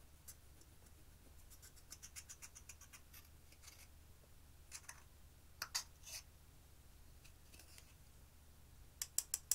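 A thin metal tool scraping and crumbling pressed eyeshadow out of its plastic compact: a run of small scratchy crackles, a few louder scrapes around the middle, then a quick series of four or five sharp clicks near the end.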